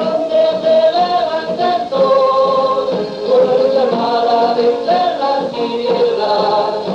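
A choir singing a song in long held notes.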